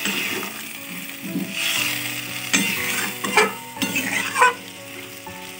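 A spatula stirring potato and pea curry in a metal pot, the watery gravy sizzling as it comes up to the boil, with a few sharp scrapes and knocks of the spatula against the pot in the second half.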